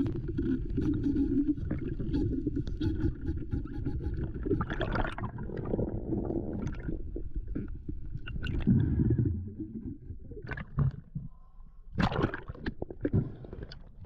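Underwater rumble of water moving against a camera housing, dense and steady for most of the stretch. In the last few seconds it thins out into scattered sharp clicks and splashy bursts as the camera comes up just under the surface.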